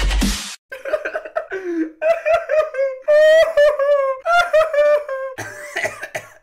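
A man's wordless, high-pitched vocalising: a run of drawn-out cries and yelps, one held for about a second midway, just after electronic intro music cuts off.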